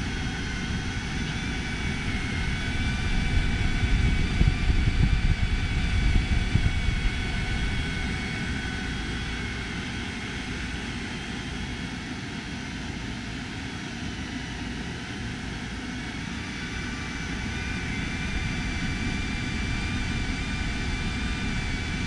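Mabru SC17C self-contained marine air conditioner running, its blower pushing air out through the supply duct. A steady rush of air with several steady high whines. A low rumble swells from about 3 to 7 seconds in.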